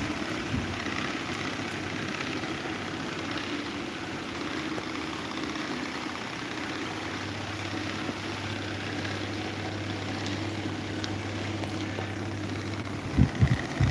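Electric table fan running, a steady whirring rush of air from its blades. A low hum joins about halfway through, and a few low thumps come at the very end.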